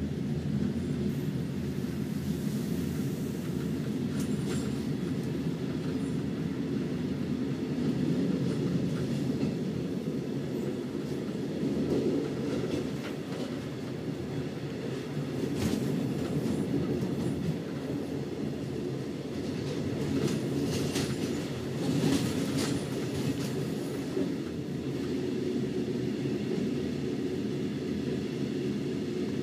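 Interior running noise of a tread-braked Halberstädter compartment coach rolling slowly: a steady low rumble of wheels on rail, broken by sharp clacks as the wheels cross points and rail joints, several of them bunched together past the middle.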